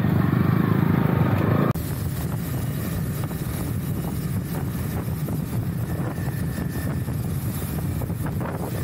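Motorcycle engine running under way with wind noise on the microphone. About two seconds in, the sound cuts abruptly from a louder, bass-heavy engine sound to a quieter, steady mix of engine and wind hiss.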